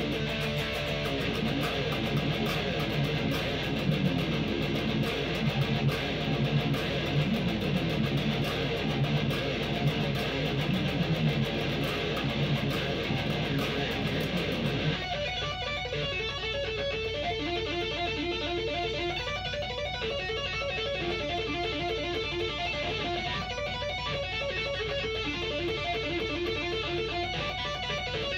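Pink Les Paul-style electric guitar played through an amp: full, dense strummed chords for about the first half, then an abrupt change to a thinner, darker tone with single picked notes in a repeating pattern.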